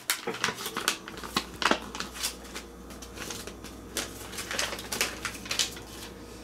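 Paper and cardboard packing inserts being handled and sorted through: irregular rustles, crinkles and light taps.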